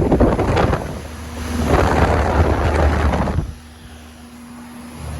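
Outdoor air-conditioner condensing units running: a steady electrical hum from the compressors, with loud gusts of rushing air over the microphone for about the first three and a half seconds, after which only the hum remains.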